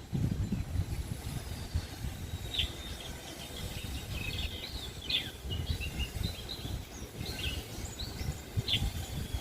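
White-eyes (pleci birds) giving a string of short, high, thin chirps, scattered irregularly over several seconds, over a low rumbling background noise.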